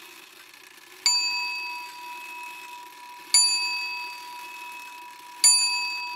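A bell struck three times, about two seconds apart, each stroke at the same pitch and ringing on as it slowly fades.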